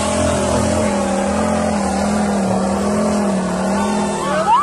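Off-road buggy engine running hard at high revs as it climbs a steep dirt hill, its pitch wavering slightly. Near the end, people start shouting.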